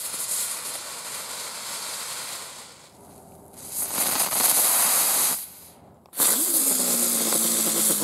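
Nico "Speedy" ground spinner fireworks hissing as they spin and spray sparks, in three separate spells: one fading away over the first few seconds, a loud one about four seconds in lasting about a second and a half, and another starting about six seconds in, joined by a low hum that dips slightly in pitch.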